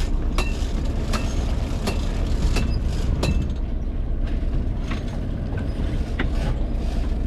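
Charter fishing boat's engine running steadily under way, a low rumble mixed with hull and water noise, with irregular sharp clicks over it.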